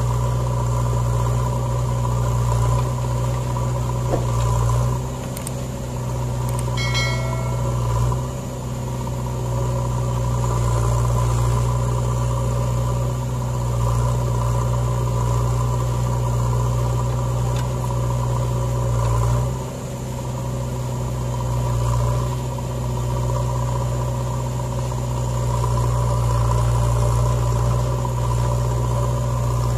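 Diesel engines of a JCB backhoe loader and an Eicher 485 tractor running steadily, a deep continuous hum whose level dips briefly a few times.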